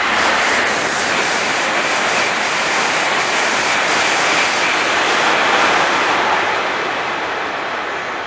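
E5 series Shinkansen high-speed train passing through the station without stopping: a loud, steady rushing noise of air and wheels. It swells at once, holds for about six seconds, then fades as the train runs off into the distance.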